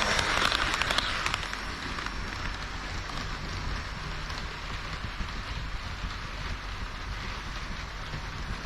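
HO-scale model train of KiHa 40 and KiHa 58 diesel railcars running on the layout track: a steady rolling hiss of metal wheels on rail and a motor hum. It is louder with a burst of rapid clicking for the first second and a half, then settles to an even hiss.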